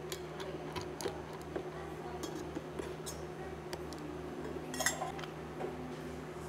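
Metal tongs setting lemon slices into a tall glass of ice cubes: light clicks and clinks of metal on glass and ice, one louder clink about five seconds in, over a steady low hum.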